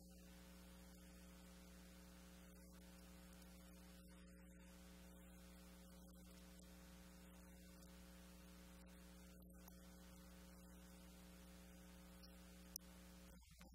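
Near silence with a steady low electrical hum, and a single faint click near the end.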